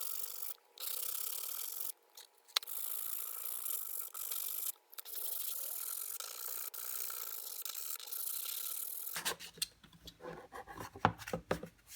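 Wood being sanded: a steady abrasive scratching with a few brief pauses. About nine seconds in it gives way to scattered clicks and knocks.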